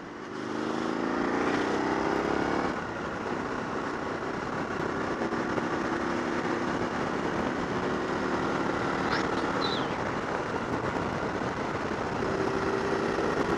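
Motorcycle engine accelerating, its pitch rising for about two and a half seconds until a gear change, then running steadily under way.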